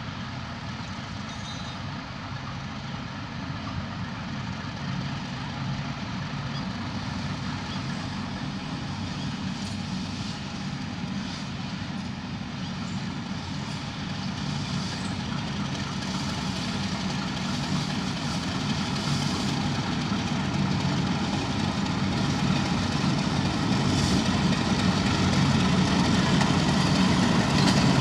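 Pakistan Railways diesel-electric locomotive running as it hauls a passenger train slowly toward the listener, its engine hum growing steadily louder as it draws alongside.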